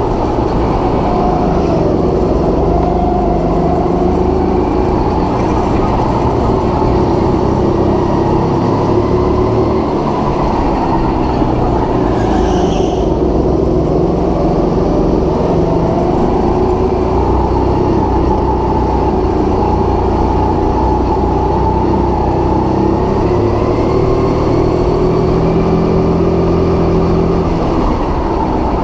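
Go-kart engine running hard without a break, its pitch rising and falling as it speeds up and slows down.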